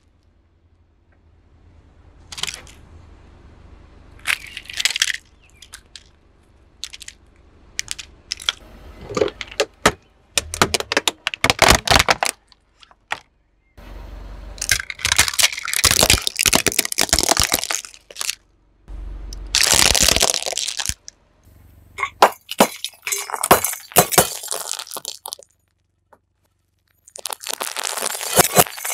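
Car tyre rolling over and crushing plastic toys, a series of sharp cracks and snaps in separate bursts: first a cactus toy in its pot, then a row of plastic water pistols. Near the end fluorescent tubes burst under the wheel with glass shattering.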